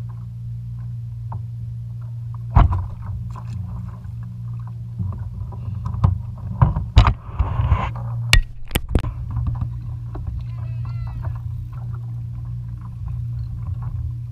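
Knocks and bumps on a plastic fishing kayak as the angler handles a fish and his gear, most of them between about six and nine seconds in, with a short hiss among them. A steady low rumble of wind and water on the mounted camera runs underneath.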